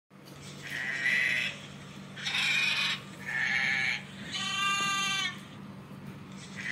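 Bleating farm animal calls, four in a row, each under a second long, the last one clearer and more tuneful than the others. A faint steady low hum lies underneath.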